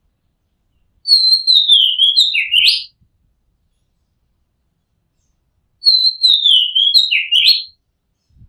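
Oriental magpie-robin singing: two near-identical whistled phrases of about two seconds each, the first about a second in and the second near six seconds in. Each falls in a run of clear notes and ends with a quick upward note.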